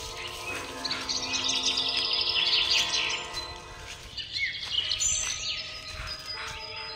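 Birds chirping and twittering in quick bursts, loudest about one to three seconds in, over background music of soft held chords.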